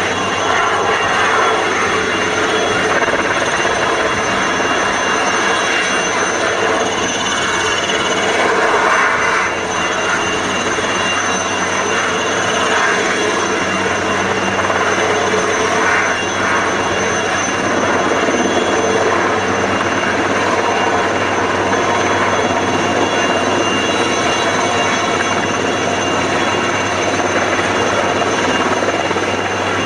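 Helicopter hovering overhead with an underslung load of rockfall netting, its rotor and engine noise loud and steady throughout.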